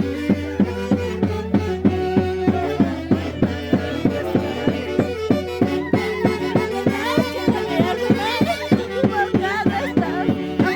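Andean Santiago dance music: a violin melody over a steady, quick drum beat of about three strokes a second and a sustained low note. The melody wavers in pitch more prominently in the second half.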